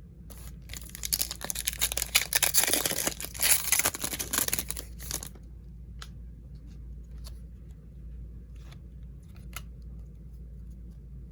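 Plastic wrapper of a trading-card pack being torn open and crinkled for about five seconds, followed by a few faint clicks and taps of cards being handled.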